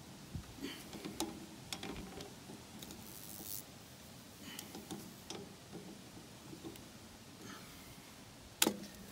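Light, scattered clicks and taps of hand work on a hydraulic hose fitting at a bulldozer's lift ram, with a louder clack near the end.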